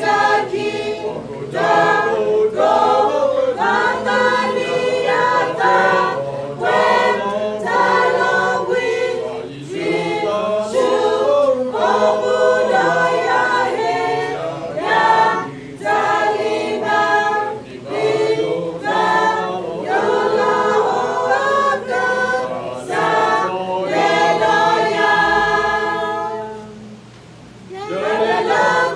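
Church choir of women and men singing a cappella, phrase after phrase, with a short breath pause near the end before the next line begins.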